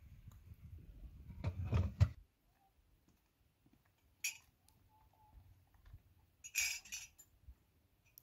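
Dishes and utensils clinking and knocking: a low rumble with a sharp knock about two seconds in, then a brief clink and a longer scraping rustle later on.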